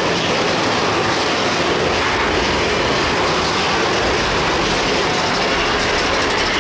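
Mine-train roller coaster running along its track, a steady rumble and clatter of its wheels on the rails.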